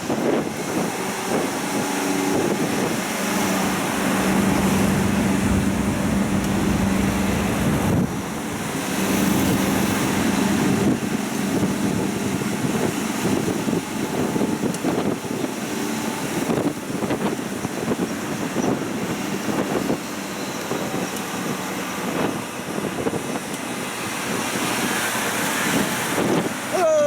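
Tourist road train under way: its engine runs with a steady hum under road and wind noise, and wind buffets the microphone.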